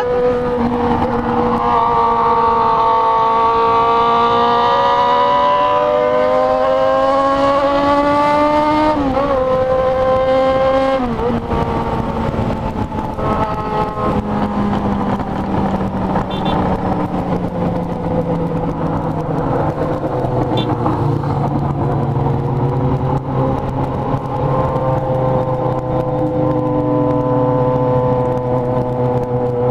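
Yamaha XJ6 motorcycle's inline-four engine under way. Its pitch climbs smoothly for about nine seconds as it accelerates, drops sharply twice around ten seconds in as the revs fall back, then runs at a steadier, lower pitch with small rises and falls.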